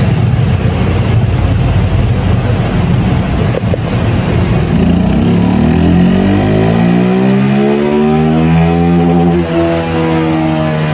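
Motorcycle engine running loudly under load on a roller dynamometer during an oil-comparison power run. About halfway through, its note becomes a clear pitch that rises, peaks and then falls away.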